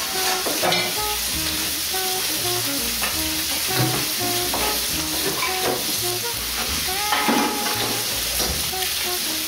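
Skin-on chicken thighs frying skin side down in hot olive oil in a pan, a steady sizzle as the skin browns and crisps. Background music with a bass line plays over it.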